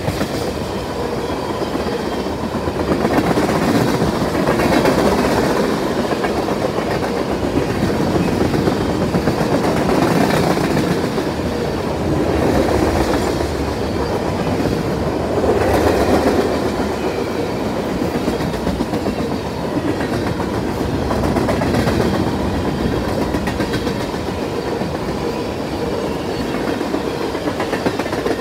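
Freight train tank cars rolling past close by: steel wheels rumbling and clacking over the rail joints in a steady, loud racket that swells and eases every few seconds as the cars' wheel sets go by.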